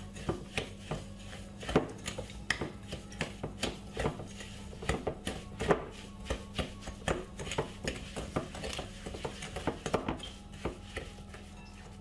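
Wooden spoon knocking and scraping against a glass mixing bowl while creaming butter and sugar by hand: irregular taps several times a second, a few of them sharper than the rest.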